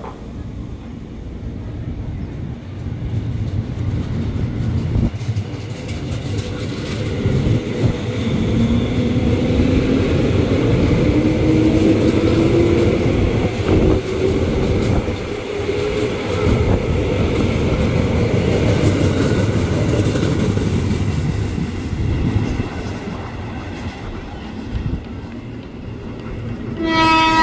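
JR 205 series electric commuter train pulling out and accelerating past, its traction motor whine rising steadily in pitch over wheel and rail rumble. The sound grows loud, then fades as the train moves away, and another train's horn starts at the very end.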